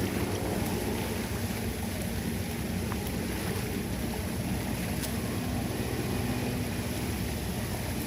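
Floodwater rushing steadily down an unclogged drain.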